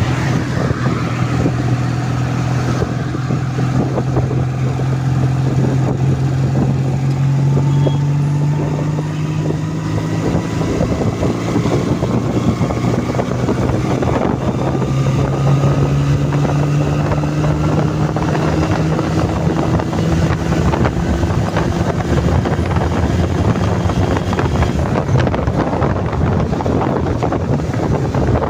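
Honda CD200 Roadmaster's air-cooled parallel-twin engine running under way on the road, its pitch climbing slowly as the bike picks up speed, with wind buffeting the microphone.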